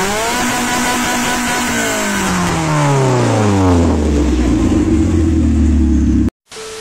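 Car engine revved at the throttle in the engine bay, held high, then falling back to idle between about two and four seconds in. It idles until the sound cuts off near the end, followed by a short beep.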